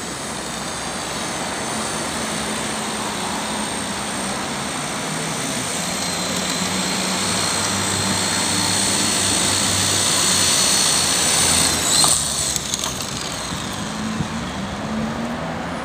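Walkera 4F180 micro RC helicopter's electric motor whining and rotor blades buzzing as it flies in, growing louder as it nears. About twelve seconds in there is a brief louder burst as it comes down, then a quieter whine with the rotors still turning on the ground.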